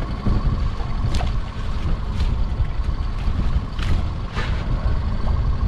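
Wind buffeting the microphone on a small open boat, over the steady low running of the idling outboard motor, with a few short knocks against the hull.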